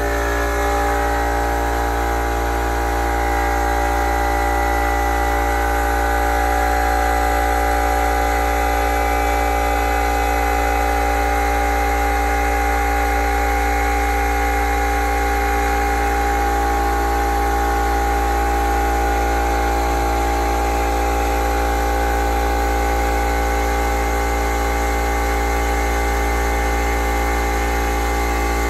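Small portable air compressor running steadily, its motor and pump building up pressure in the tank toward about 100 psi. It makes a steady, pitched mechanical hum.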